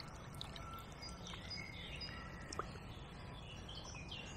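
Faint songbirds chirping and whistling, many short calls scattered throughout, over a low steady background noise.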